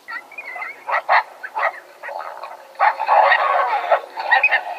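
Coyotes yipping and howling: a burst of quick yips and gliding howl notes that starts suddenly at the beginning.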